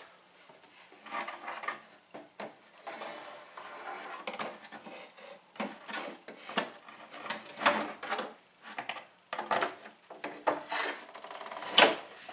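Fibreglass body panels of a scale GT40 shell scraping, rubbing and knocking against each other as the tail section is pushed and shifted on the body, which it will not seat on, with a few sharper knocks near the end.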